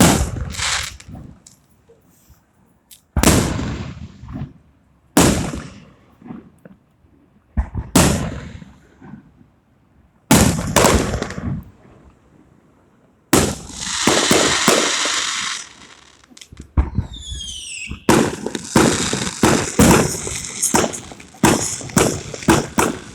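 Fireworks going off: five single sharp bangs a couple of seconds apart, each trailing off slowly, then a long hissing spray, a few short whistles falling in pitch, and rapid strings of bangs and crackles in the last few seconds.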